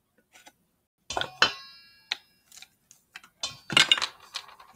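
Stainless steel mixing bowl knocked several times, ringing briefly after the first two knocks, with a cluster of knocks near the end.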